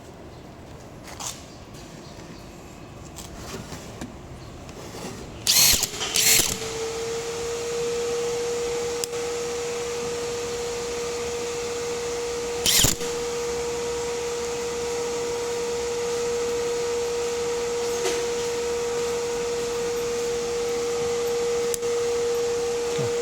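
Makita HP001G 40V XGT cordless hammer drill starting up after two loud short bursts about five seconds in, then running at a steady speed with an even whine. A brief loud burst cuts in once partway through.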